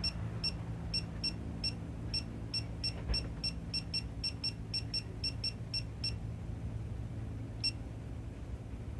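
A quick run of short electronic button beeps, about four a second, for some six seconds, then a single beep near the end. This is the keying-in of a torque value of about 42 lb-ft, a third of the 125 lb-ft head-stud torque. A steady low hum runs underneath.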